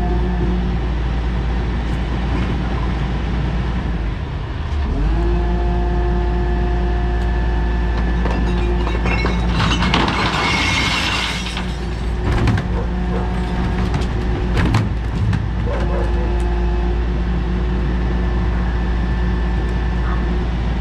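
Rear-loader garbage truck's engine and hydraulic bin lifter running. The engine revs up a few seconds in as the lifter raises two wheelie bins. Around halfway the recycling pours into the hopper with a loud clatter, followed by a few knocks as the emptied bins come back down.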